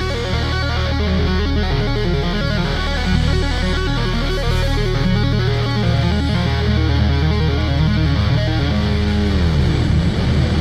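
Hard rock instrumental passage: electric guitar playing over strong low bass notes, with the guitar pitch sliding sharply down and back up near the end.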